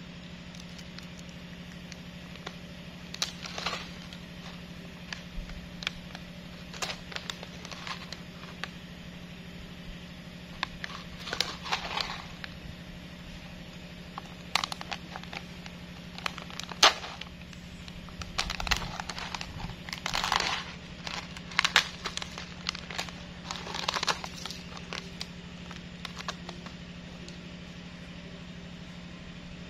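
Irregular crackling and rustling in short bursts, with a sharp crack about 17 seconds in, over a steady low hum.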